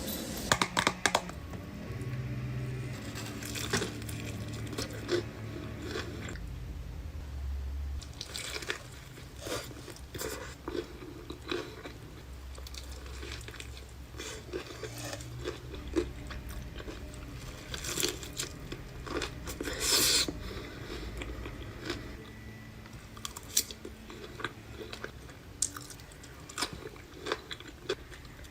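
Close-miked chewing and biting of crunchy food, with irregular crunches. The loudest crunch comes about twenty seconds in.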